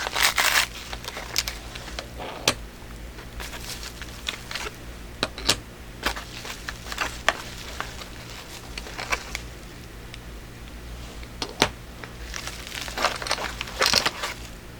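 Packaging being opened and handled by hand: rustling and crinkling near the start and again near the end, with scattered sharp clicks and taps in between.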